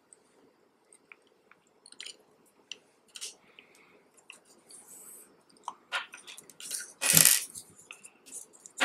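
Small plastic light parts and their cable being handled on a wooden tabletop: scattered light clicks, taps and rustles, with one louder brief scrape about seven seconds in.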